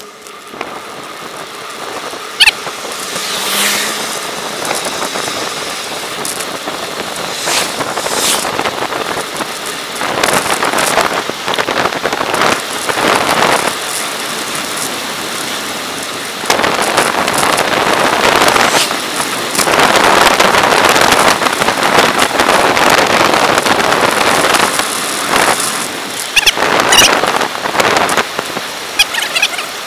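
Wind rushing over the microphone of a camera on a moving road bicycle, mixed with tyre noise on asphalt, rising and falling in gusts and louder in long stretches.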